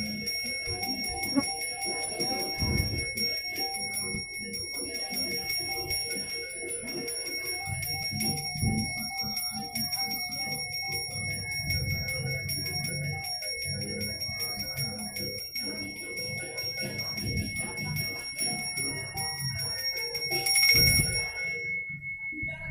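Balinese genta, a priest's bronze hand bell, shaken fast and steadily so that its clapper strikes over and over and its high, clear tones keep ringing. There is one louder stroke near the end. This is the bell a pemangku rings while consecrating (ngastawa) yadnya offerings.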